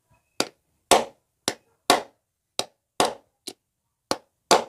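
Hammer tapping, nine sharp strikes about two a second, driving a new bearing onto the rotor shaft of a sewing machine clutch motor.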